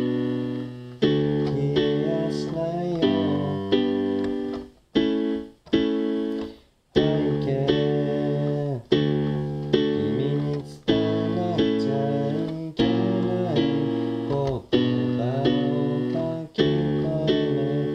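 Keyboard playing chords in a steady pulse, a new chord struck about once a second and left to fade, with a couple of short breaks around the middle.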